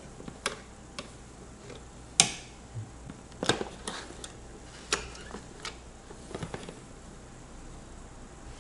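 A scatter of sharp metallic clicks and light knocks from the LGA1151 CPU socket's retention lever and load plate on an ASRock Z370 motherboard being released and opened, and from the processor being lifted out, with the board handled. The loudest click comes about two seconds in.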